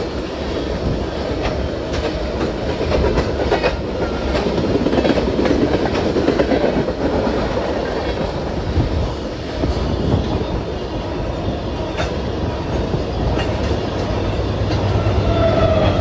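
Freight train tank cars rolling past close by: a steady rumble of steel wheels with rapid clicks over rail joints. About a second and a half before the end, a diesel locomotive's low engine hum comes in as it draws alongside.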